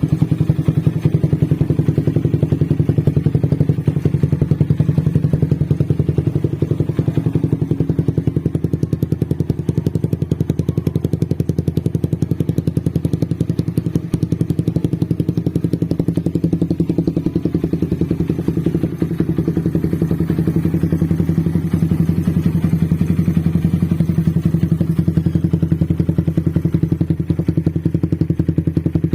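Suzuki Satria FU 150's single-cylinder four-stroke engine idling steadily.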